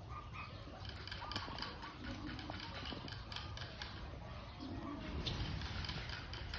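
Rabbits eating dry feed quickly: a fast, irregular run of small crunching clicks.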